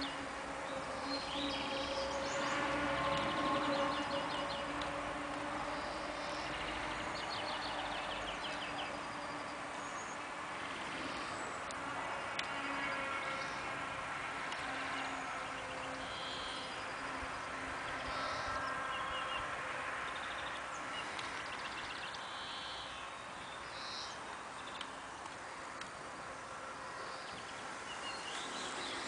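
Small electric RC sport boat's motor whining steadily, fading away about two-thirds of the way through as the boat gets farther off. Songbirds chirp throughout.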